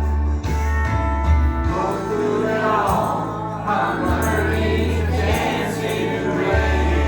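A Christian gospel song with choir singing over long, held bass notes.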